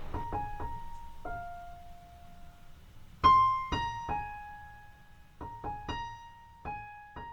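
Background music: a slow piano melody of single notes, each struck and left to ring and fade, with a louder note a little past three seconds in.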